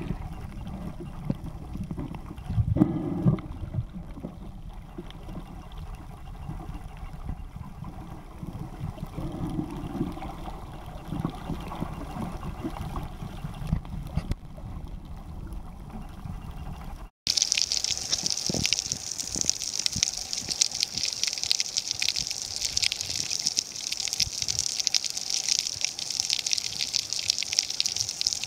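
Water sounds in two stretches: first a low, uneven rumbling wash, then, after a sudden cut about 17 seconds in, a steady high hiss of water with a fine crackle.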